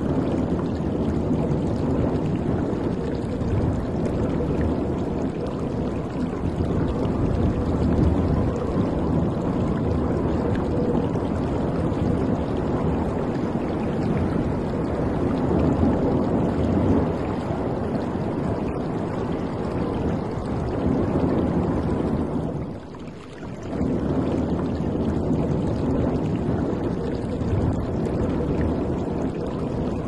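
Waves washing and splashing against a ship's hull, a steady rush of water that briefly drops away about 23 seconds in.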